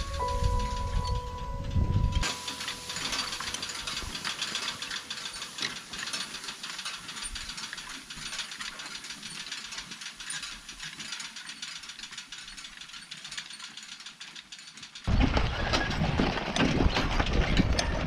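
Horse-drawn side-delivery hay rake rattling and clicking steadily as its ground-driven tine reel turns. About fifteen seconds in, the rattle becomes louder and fuller, with a low rumble underneath.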